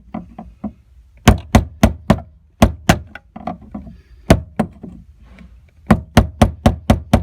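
Hammer striking a screwdriver to drive round the plastic lock ring of a fuel pump assembly: sharp knocks in short groups of two to four, ending in a quick run of about four taps a second.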